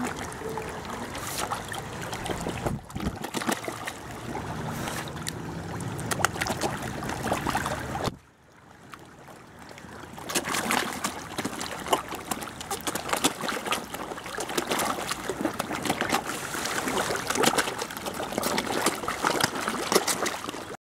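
A crowd of carp splashing and sucking at the water surface as they jostle to feed, a busy run of small splashes and gulps that drops away briefly about eight seconds in, then builds again.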